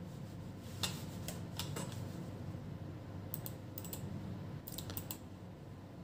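Computer mouse buttons clicking: a series of sharp clicks, several in quick pairs, over a low steady hum.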